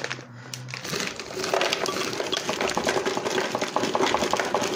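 Strawberry, mango and berry pieces poured from a bag into a plastic Ninja blender jar full of ice: a rapid patter of small clicks and clinks as the pieces land on the ice and the jar. The patter starts about one and a half seconds in.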